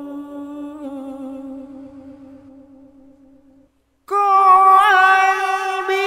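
A single voice singing without accompaniment: a long held note that fades away about three and a half seconds in, then, after a brief silence, a much louder sustained note with vibrato.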